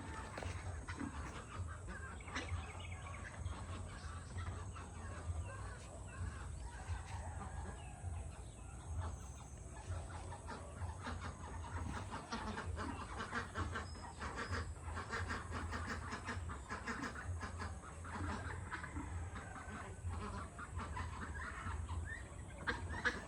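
A large flock of farm poultry calling and clucking continuously, many birds overlapping.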